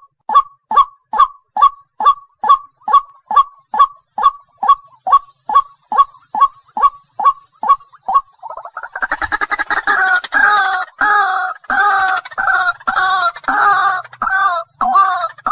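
White-breasted waterhen calling: a fast, even run of short falling 'kook' notes, about two and a half a second, then about eight seconds in a busier run of rasping 'kr-ruak' calls repeated about twice a second.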